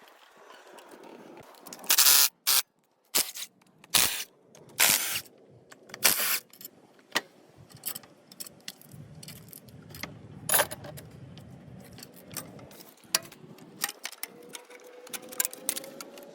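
Irregular metallic clicks, clinks and scrapes of hand tools and engine parts being handled, with a cluster of louder clanks in the first half.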